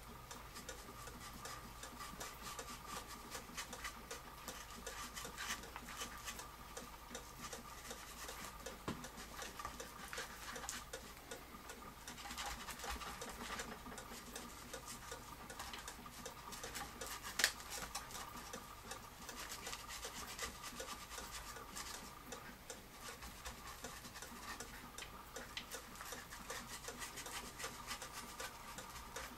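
Foam sponge brush rubbing gel stain onto a wooden cuckoo clock case, with a clock ticking steadily. One sharp click stands out about halfway through.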